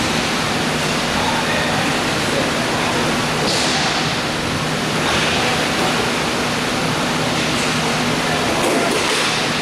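Steady rushing background noise of an indoor roller hockey rink during a game, with a low hum underneath.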